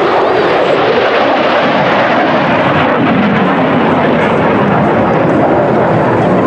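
F-35 fighter jet passing overhead, its single F135 afterburning turbofan giving a loud, steady jet noise.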